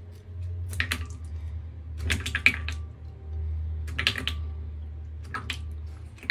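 Metal ice ball press being handled as an ice sphere is set in it: its parts click and clink in four short clusters over a steady low hum.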